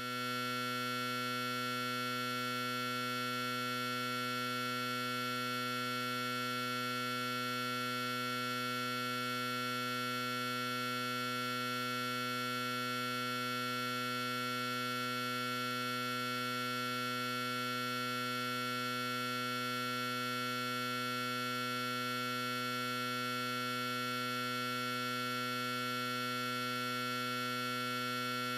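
A steady electronic drone of several held tones, from a low hum up to a high hiss, unchanging throughout.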